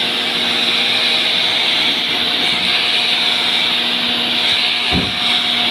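Ferm GRM1028 pressure washer running steadily: a motor hum under the hiss of the water jet striking a ribbed mat. A short low thump about five seconds in.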